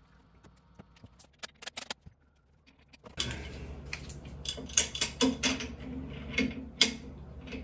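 Light metallic clicks and clinks of a wrench being fitted to the crankshaft snout of a small-block engine to turn the crank and line up the timing chain gears. A steady low hum comes in about three seconds in.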